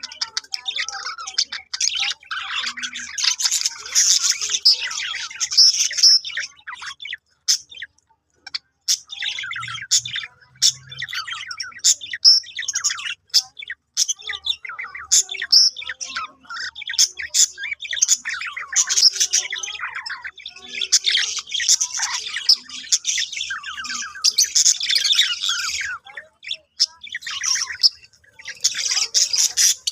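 Budgerigars chattering and warbling in fast runs of high chirps, in bouts broken by short pauses.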